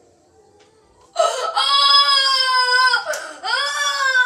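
A boy's voice holding two long, high wailing notes: the first starts about a second in and lasts about two seconds, the second is shorter and slides up into its pitch.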